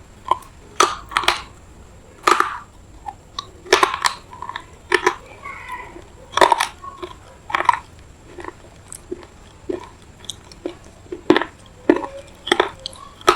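Close-miked chewing and crunching of a piece of semi-wet red clay, in irregular crisp crunches about once a second. The clay is gritty.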